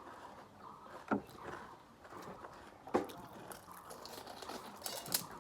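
Faint close-up sounds of panipuri being eaten: wet squishing of the water-filled puri, with a sharp crunch about a second in and another about three seconds in.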